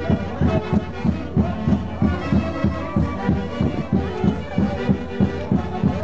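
Live Andean festival band (orquesta) playing a traditional Santiago dance tune, melody lines over a steady, quick beat.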